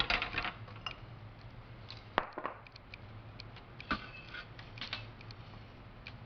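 Scattered light clicks and knocks of a plastic capsule-filling machine's plates and tray being handled and set down on a stone countertop, with one sharp knock about two seconds in, over a low steady hum.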